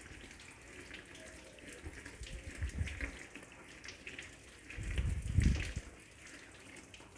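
Water from a garden hose running and splashing over an acrylic car headlight while it is wet-sanded by hand with sandpaper. A low rumble rises about five seconds in.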